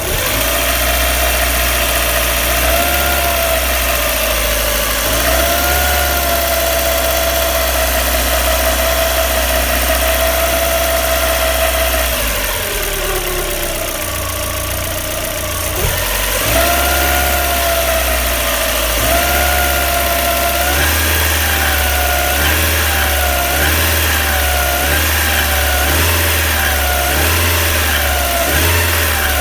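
IKCO Samand's warm engine revved above idle with a high squeak that rises and falls with engine speed: held high for a long stretch, sagging briefly about halfway, then wavering with repeated blips of the throttle near the end. The squeak appeared after the timing belt, its idler rollers and the water pump were replaced, and shows only on a warm engine above about 2000 rpm.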